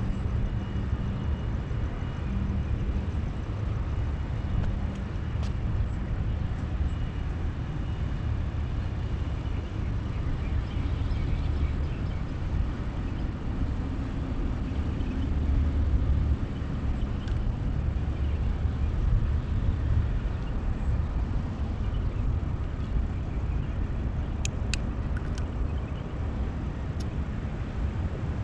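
Steady low outdoor rumble that rises and falls slightly, with a few faint sharp clicks near the end.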